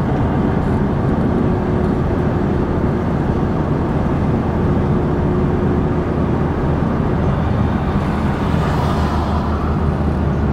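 Steady engine and road noise heard inside a moving car's cabin, with a low hum. A faint hiss swells and fades about nine seconds in.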